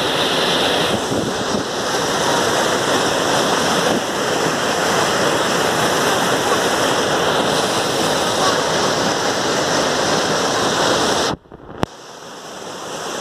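Floodwater from a ruptured dam rushing and churning in a loud, steady torrent. About eleven seconds in the sound cuts out abruptly, with a single click, then fades back in.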